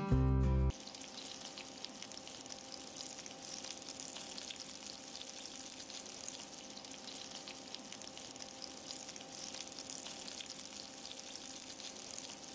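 Sucuk slices sizzling in a frying pan, a steady crackle of fine spits and pops: the cooking water has boiled off and the sausage has begun frying in its own fat. Louder music cuts off just under a second in.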